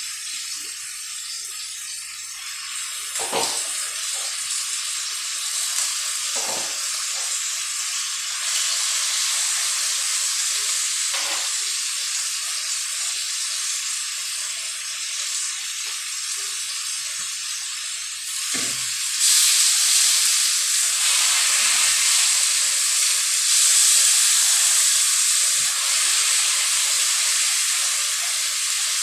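Raw chicken pieces sizzling in a hot wok, a steady frying hiss that gets louder about two-thirds of the way through. A few short knocks sound over it.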